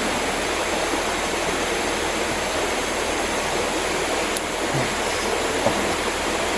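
Mountain river water running steadily over rocks, a constant rush, with a single faint click a little past four seconds in.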